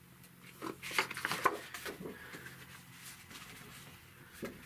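Knocks and rubbing of wooden picture frames being handled and swapped by hand, loudest in the first two seconds.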